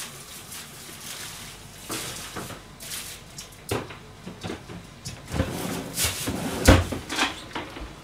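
Knocks and clatter of kitchen things being put away, with cupboard doors opening and shutting. Sparse at first, the knocks come thicker in the second half, and the loudest is about two-thirds of the way in.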